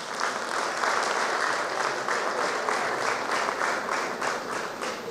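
Audience applauding, the clapping fading toward the end.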